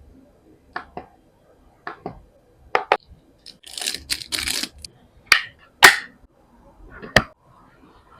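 KREO mechanical keyboard keys clicking as single presses, irregularly spaced and some in quick pairs. About four seconds in there is a brief hissing rush.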